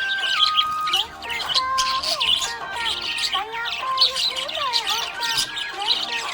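Budgerigar chirping and warbling continuously: rapid high chirps mixed with short gliding warble notes.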